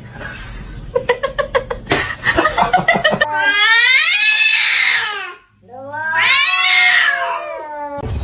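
Domestic cat yowling twice, two long drawn-out calls of about two seconds each, preceded by a rapid string of short sounds.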